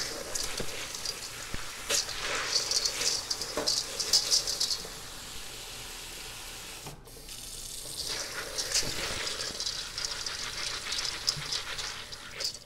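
Kitchen faucet running into a stainless steel colander of dried beans while hands stir and rub them, the beans rattling under the water stream. The rattling comes in two spells, easing off for a few seconds in the middle while the water runs on its own.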